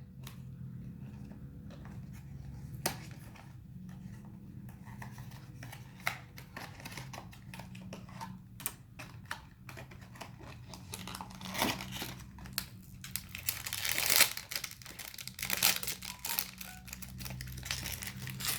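Blind-box toy packaging being opened by hand: cardboard and a foil wrapper tearing and crinkling, with scattered clicks and rustles that get busier and louder in the second half.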